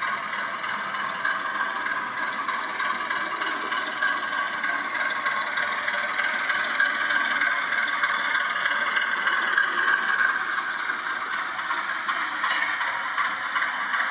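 HO-scale model train, a class 749 'Bardotka' diesel locomotive with a passenger coach, running along the layout track with a steady rattle and whir that grows a little louder as it approaches.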